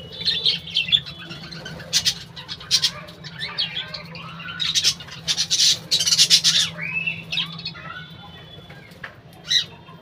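A flock of budgerigars chirping and chattering, with short bursts of wing flapping, busiest around the middle.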